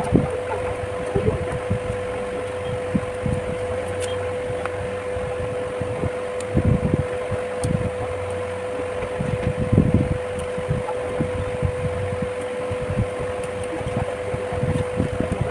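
A steady mechanical hum with one even tone, like a fan running, with soft low thumps now and then, loudest about a third of the way in and again past the middle.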